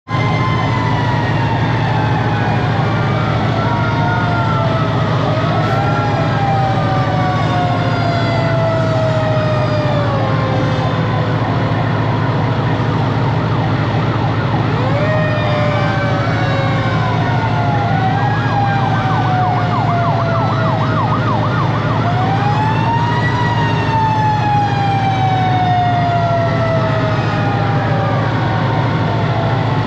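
Several fire-engine sirens sound at once, overlapping at different pitches, each rising and then slowly falling. A fast warbling siren joins about two-thirds of the way in. Underneath runs the steady idle of a Detroit Diesel 8V71 two-stroke V8 engine.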